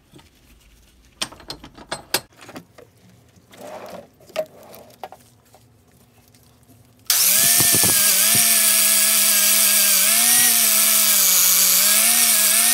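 Scattered clicks and taps of parts being handled, then about seven seconds in a handheld power tool starts and runs under load, its pitch wavering slightly, as it cleans old gasket material off a metal part.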